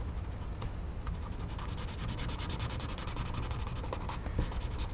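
Felt-tip drawing pen scribbling rapidly back and forth on a paper tile, shading in a solid black area: a steady run of fast, closely spaced scratchy strokes.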